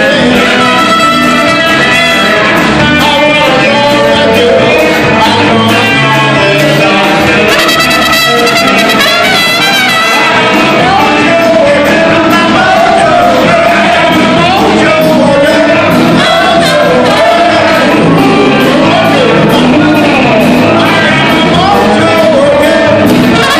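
Live blues band playing loudly: electric guitar, electric bass and drums, with a singer and a trumpet.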